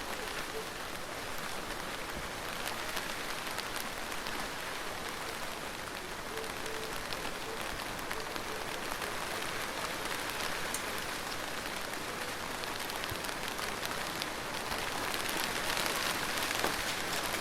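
Gentle rain falling steadily on a surface, a continuous hiss dotted with the ticks of single drops, swelling slightly near the end.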